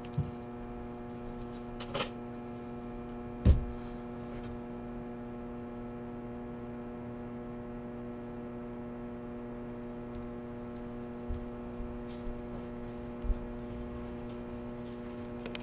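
Steady electrical hum made of several even tones, with a few short soft knocks scattered through it; the loudest knock comes about three and a half seconds in.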